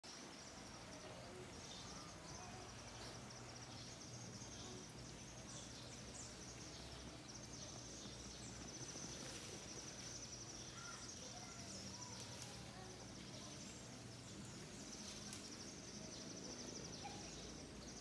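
Faint, steady high-pitched buzzing chorus of insects, with a few scattered bird chirps.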